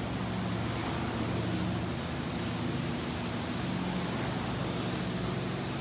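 Carpet-cleaning hot-water extraction wand being worked over carpet: a steady rushing hiss of vacuum suction and spray, with a low machine hum underneath.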